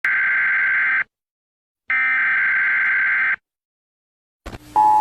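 Emergency broadcast alert tones. Two harsh buzzing tones of about a second and a second and a half, with a short silence between them. Near the end a steadier, lower alert tone begins, which precedes the emergency announcement.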